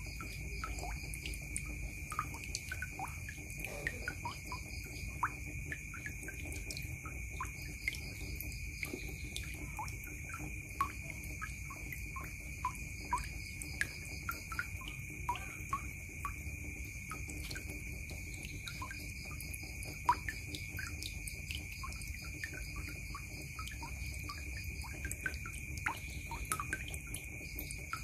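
Water dripping and trickling from a pipe into a plastic bucket full of water: quick, irregular plinks and bloops, several a second. A steady high-pitched tone runs underneath.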